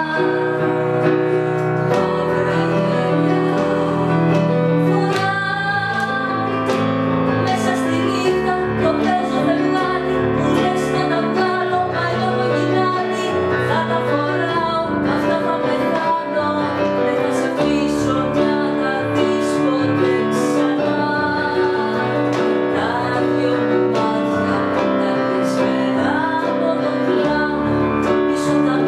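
A woman singing a Greek ballad to electronic keyboard accompaniment, recorded live in the room with no sound equipment beyond the camera.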